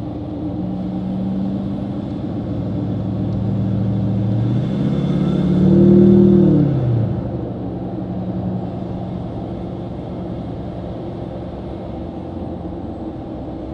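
Duramax turbo-diesel V8 pickup running through a 7-inch exhaust stack while driving: a steady low exhaust note that rises in pitch and grows louder about four and a half seconds in, then drops back a couple of seconds later and settles into a steady cruise.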